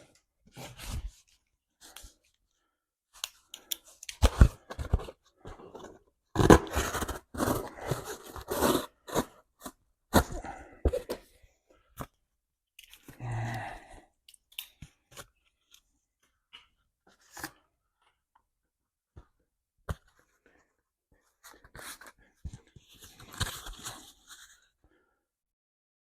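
Irregular handling noises: crinkling and rustling like paper or plastic being torn or handled, mixed with light knocks and clicks, in two busier stretches.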